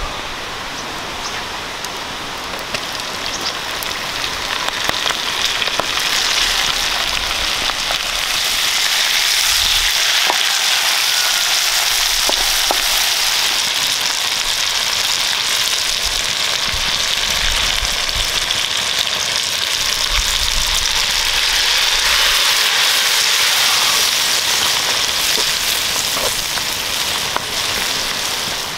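Whole shrimp sizzling in hot butter in a wok over a wood fire: a dense crackling hiss that swells after several seconds and eases off near the end.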